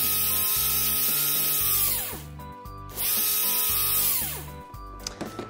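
A drill whirring in two runs, the first about two seconds and the second about a second and a half, its pitch falling as it spins down at the end of each. Background music plays underneath.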